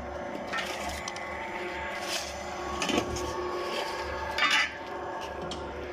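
Diesel-powered clay brick extruder running with a steady hum, broken by occasional metallic clinks and clanks. The loudest is a short rattling clatter about four and a half seconds in.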